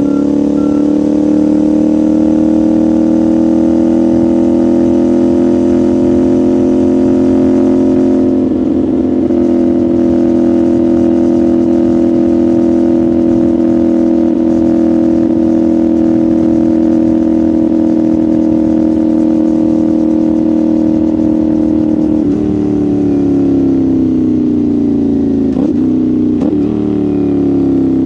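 CFMoto 450SR's parallel-twin engine and exhaust pulling at steady throttle, the pitch climbing slightly and then holding, with a brief break about eight seconds in. Past twenty seconds the rider rolls off and the pitch falls, with quick throttle blips on the downshifts near the end.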